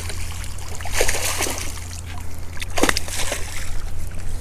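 Hooked largemouth bass thrashing and splashing at the surface as it is reeled in to the bank, with sharp splashes about a second in and again near three seconds.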